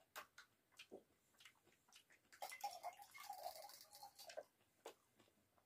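Faint, wet clicks and squishes of rice and cauliflower-potato curry being mixed with bare fingers on a steel plate, with a denser stretch of squishing in the middle, along with the mouth sounds of chewing.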